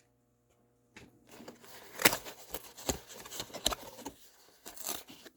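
Sock packaging being handled: after a near-silent first second, a run of sharp crinkles and rustles, loudest about two and three seconds in.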